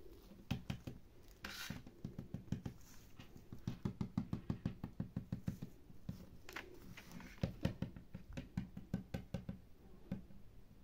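A small plastic doll handled in the hands, with quick runs of light knocks, about five or six a second, in several bursts with short pauses between them.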